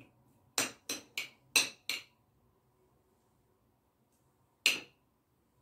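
Spoon clinking against a bowl while scooping minced-meat filling: five quick clinks in the first two seconds, then one more about four and a half seconds in.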